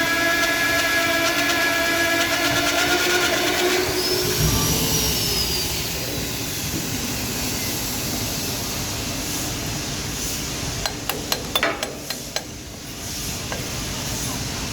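Electric motor of a magnetic-base core drill running with a steady whine, then cutting out about four seconds in. A rumbling noise continues, with a quick run of sharp clicks and knocks near the end.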